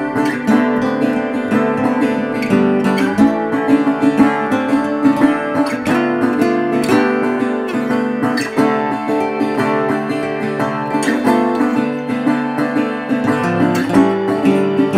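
Background music: acoustic guitar strumming and plucking.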